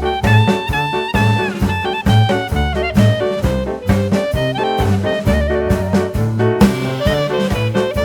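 Upbeat swing-jazz background music with brass and saxophone over a steady bouncing beat.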